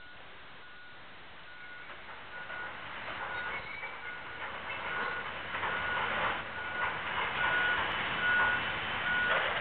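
Heavy machine's reversing alarm beeping steadily, about one and a half beeps a second. From about two seconds in, a rising noise of scraping and clanking metal builds over it as the overhead crane is pulled down, loudest in the second half.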